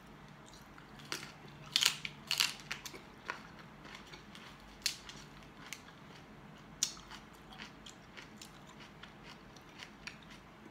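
Crisp crunching and chewing of bok choy and Italian squash slices being bitten and eaten. The sharp crackles come in an uneven run, loudest about two seconds in, then sparser and softer.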